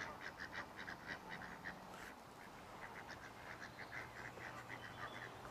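Duck calling faintly in a fast run of short quacks, about five a second, with a short pause about two seconds in.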